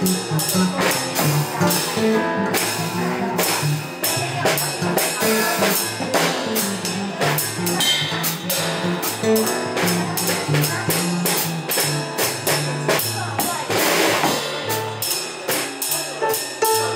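Live jazz combo playing: an electric bass line under a drum kit, with sticks keeping a steady cymbal pattern, and a keyboard. A louder cymbal wash comes about fourteen seconds in.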